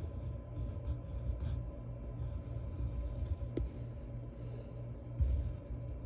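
Graphite pencil scratching on paper in short strokes, over a low steady hum.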